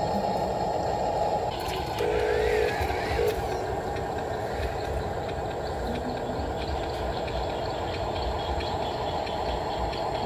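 Small electric motors and gears of radio-controlled Huina construction models, a dump truck and a hydraulic excavator, whirring steadily, with a short higher whine about two seconds in.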